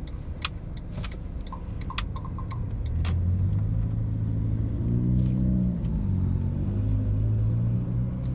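Car engine heard from inside the cabin, running and pulling away at low speed. It grows louder about three seconds in and rises and falls a little in pitch. A few sharp clicks sound in the first seconds.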